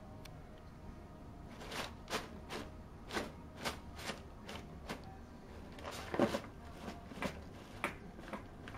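Crumpled brown packing paper crinkling in a run of short, irregular crackles, about two a second, as a cat digs and noses into it in a cardboard box. The crackling starts about a second and a half in and is loudest around six seconds in.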